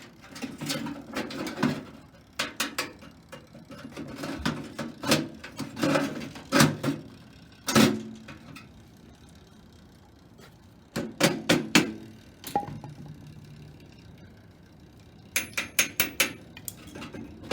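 Irregular knocks and clicks of loose parts from a wrecked toaster oven being handled, with a quick run of clicks near the end.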